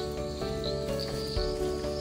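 Background music of steady held tones that shift pitch once or twice, over crickets chirping in a high pulsing trill.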